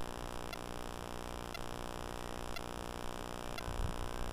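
Steady low hum with a faint tick repeating about once a second.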